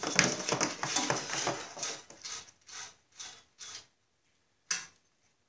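Wires being pushed through a hole in a Snapper mower's metal handle tube, scraping and clicking against the metal. The sound is busy for about two seconds, thins to a few separate clicks, and ends with a single click near the end.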